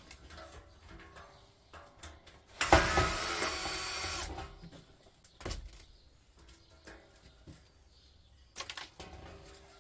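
Sheet-metal casing of a steel-plate electric hob being worked apart by hand: scattered clicks and knocks, with one loud grating scrape of metal lasting about a second and a half a few seconds in.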